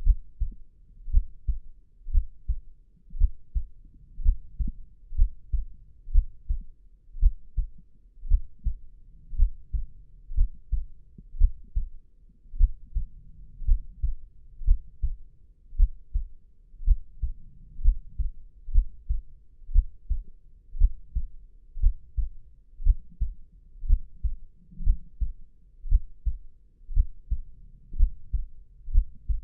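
Human heartbeat: a steady lub-dub double thump at a calm resting pace, a little faster than one beat a second, deep and low-pitched.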